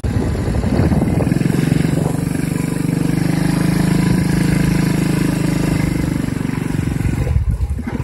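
Vehicle engine pulling away and running at a steady pitch under light load, easing off about seven seconds in.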